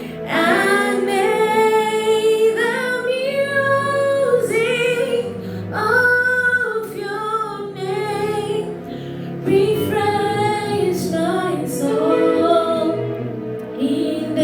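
A woman singing a slow hymn over soft, sustained instrumental accompaniment, in phrases of held notes.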